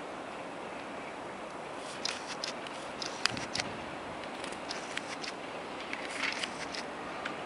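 Electric locomotive-hauled double-deck passenger train approaching slowly over station trackwork, heard as a steady hiss of running noise with irregular sharp clicks of wheels over rail joints and points starting about two seconds in.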